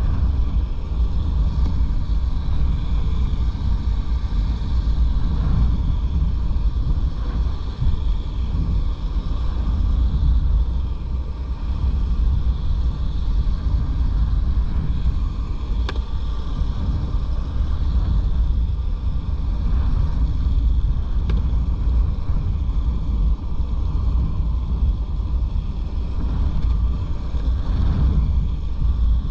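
Strong wind buffeting the microphone, a loud, steady low rumble with no breaks.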